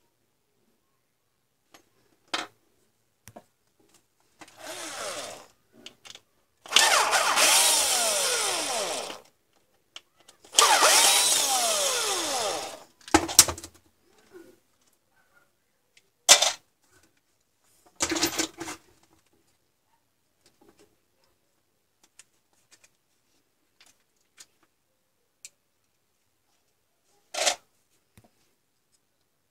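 A small electric power-tool motor runs twice for about two seconds at a time, its whine falling in pitch as it winds down each time, followed by a few short sharp bursts and clicks.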